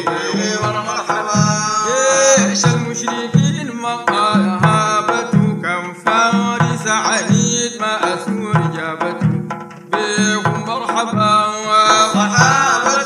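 Sudanese madeeh praise song: men's voices singing over a steady beat of large hand-held frame drums (tar).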